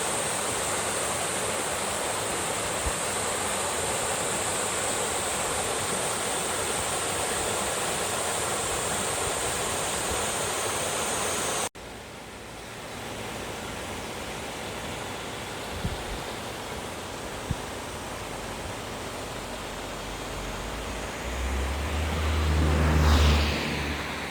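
Valley stream rushing over rocks, a steady noise that cuts abruptly about halfway through to a quieter stretch of flowing water. Near the end a vehicle passes close by, its low rumble swelling and fading as its pitch falls.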